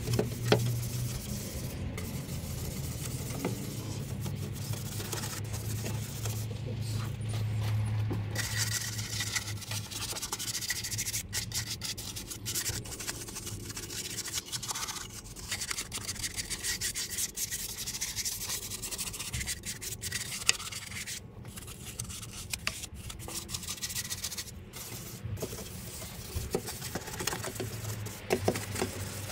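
Repeated scrubbing and rubbing strokes on engine-bay surfaces, working in degreaser, over a low steady hum.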